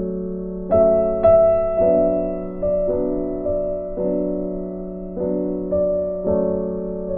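Background music: a soft keyboard melody, a new note about every half second fading away over a steady low held tone.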